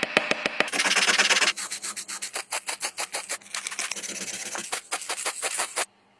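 Metal of an antique oil can being rubbed down by hand with an abrasive, in fast back-and-forth strokes at several a second, which stop abruptly shortly before the end.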